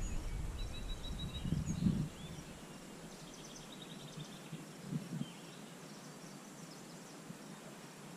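Small birds chirping and trilling over quiet outdoor ambience, with a low rumble on the microphone that stops about two seconds in.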